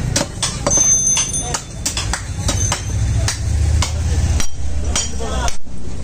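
Heavy butcher's knife chopping beef on a wooden stump block: irregular sharp knocks, sometimes several in quick succession, over a low steady rumble.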